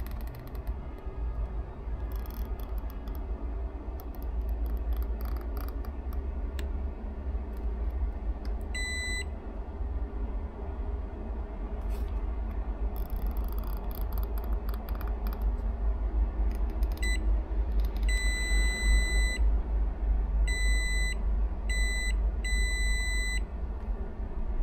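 Multimeter continuity beeper sounding in about six beeps of one steady high tone, some short and some over a second long: each beep signals that the probes have found a connection along a trace from a voltage point to an MCU pin on the ECU board. Between beeps, the probe tips scratch and tap on the circuit board.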